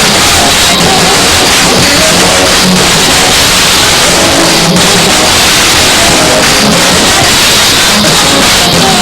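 Loud, steady distorted noise with music underneath.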